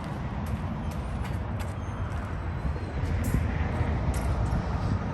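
Steady low outdoor rumble with no clear single source, with a few faint light clicks, getting a little louder about three seconds in.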